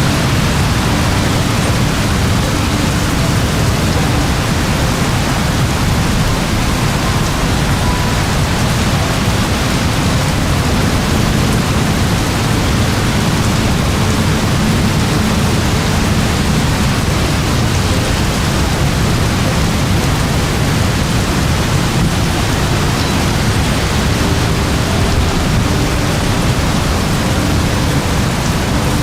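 Very heavy rain pouring in a steady, dense downpour with a deep low rumble underneath.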